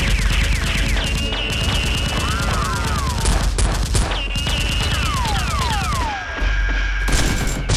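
Rapid automatic gunfire sound effects laid over a Nerf battle, dense bursts of shots with several falling whistles in between. The shots break off briefly about six seconds in, then start again.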